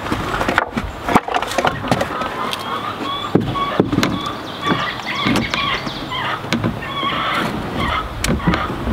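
Irregular wooden knocks and clatter as a door panel of glued tongue-and-groove boards is handled and set against the front of the wooden nest boxes.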